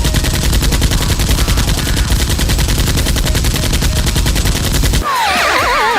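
Sustained rapid automatic gunfire, a dense, even stream of shots that cuts off suddenly about five seconds in. It is followed by a flurry of falling, wavering whistle-like tones.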